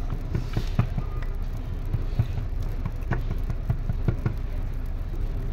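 Light, irregular clicks and taps from food preparation at a street paratha stall: hands working potato filling and a spoon against a steel pot. A steady low rumble runs underneath.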